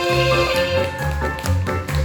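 Stage musical's curtain-call music: a bass line under a melody, with a run of sharp percussive taps from about half a second in.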